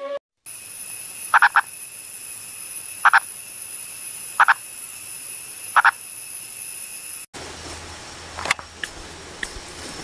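Purple frog calling: four short calls about a second and a half apart, some of them doubled, over a steady high-pitched ringing. About seven seconds in, the sound cuts abruptly to scratchy rustling and clicks with a low hum.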